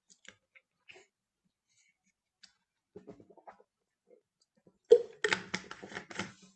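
A person pausing to drink: faint small clicks and soft swallowing sounds. About five seconds in comes a sharp knock as the drink is set down, followed by a second or so of rattling and handling noise.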